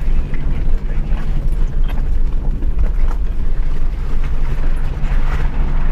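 Jeep Grand Cherokee WJ's engine running at low speed, a steady low drone heard from inside the cabin, with a few light knocks and rattles as it crawls over the trail.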